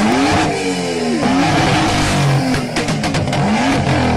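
BMW sports car engine revving hard repeatedly from standstill, exhaust blasting at someone sitting behind it, the pitch rising and falling with each blip. Sharp exhaust crackles from about two and a half seconds in.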